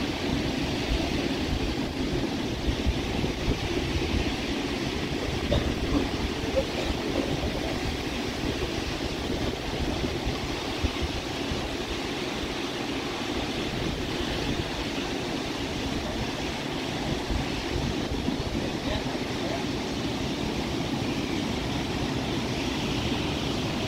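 Steady rush of river water pouring through and below the dam's spillway gates, with wind buffeting the microphone in a low, fluttering rumble.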